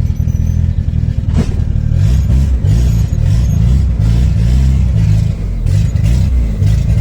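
Modified VW Voyage's turbocharged AP 1.9 four-cylinder engine (Holset HX40 turbo, 350T cam) running and being revved, its pitch rising and falling, with a sharp click about a second and a half in.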